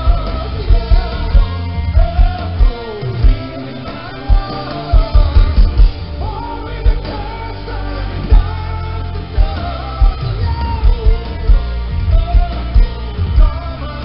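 Rock band playing live through a festival PA, heard from the crowd: a singer's voice over electric guitars and drums, with the kick drum hitting hard on a steady beat.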